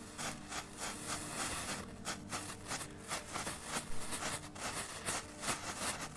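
Comet 'Blitz und Donner' youth ground fireworks burning: an irregular crackling and hissing, with no bang.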